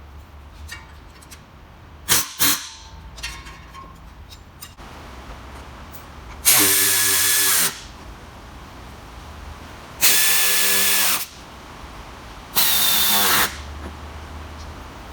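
Handheld power drill or driver run in three bursts of about a second each, its motor whine dropping in pitch as each trigger is released. A few sharp metal clanks come a few seconds before the first burst.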